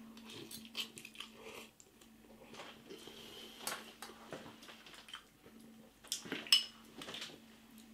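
Fork clinking and scraping against a bowl of instant noodles while they are eaten, with quiet mouth sounds from the eating. A few sharper clinks come about three-quarters of the way through.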